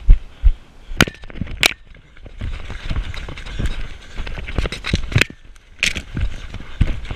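Someone running through brush and under trees. Irregular sharp snaps and knocks, several of them loud, come over a low rumble and rustle from the jolting body-worn camera.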